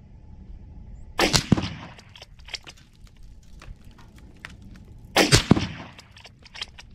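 Two shots from a Steyr Scout bolt-action rifle in .308 Winchester, about four seconds apart, each followed by a few short metallic clicks as the bolt is cycled.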